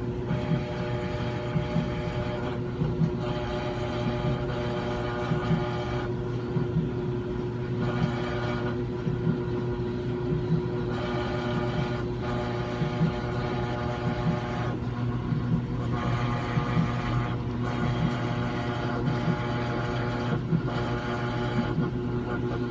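A brand-new Samsung washing machine running with a steady electrical buzz. A harsher, higher buzz swells in and drops out every few seconds. The noise is abnormal for a new machine.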